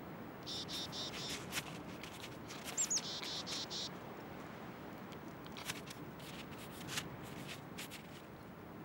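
A run of high-pitched chirping squeaks lasting about three seconds, then scattered sharp clicks and crunches as a coyote chews the mouse it has caught.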